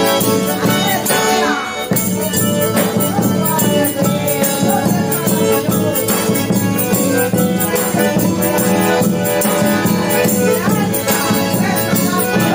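Live band playing the instrumental break of a Portuguese-language gospel song between sung verses, with a steady beat.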